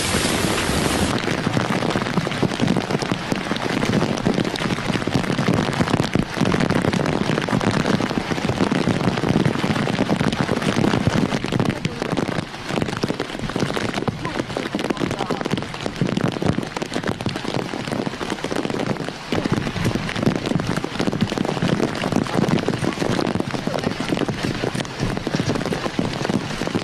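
Heavy rain falling steadily, a continuous rushing noise with no letup.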